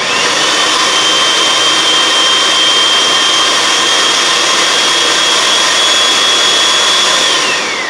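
Electric food processor running at full speed, chopping onions and green herbs, loud with a steady high whine. About seven seconds in it switches off and the whine falls away as the blade spins down.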